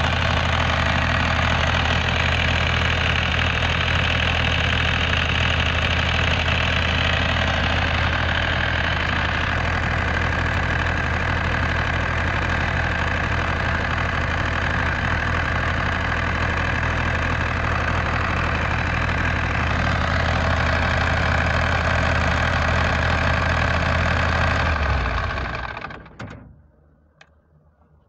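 A 16 kVA diesel generator's engine running steadily, then shut down about 25 seconds in and winding down to quiet over a second or so.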